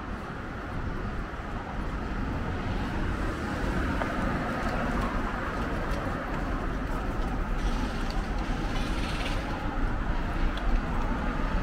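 Street traffic noise: a steady rumble of passing vehicles, with a brief hissier sound of a passing vehicle near the end.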